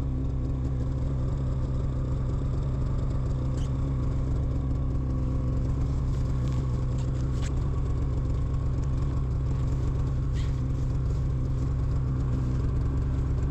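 Snowmobile engine idling steadily, with a few faint clicks over it.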